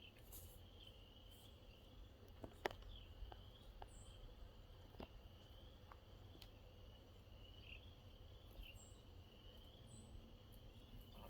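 Near silence in the outdoors: a faint, steady high-pitched insect-like trill, broken by a few soft clicks, the sharpest about two and a half seconds in, and a few brief, faint high chirps.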